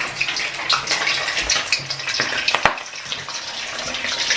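Perch deep-frying in hot oil: a dense, steady sizzle with crackling pops, and one knock about two and a half seconds in.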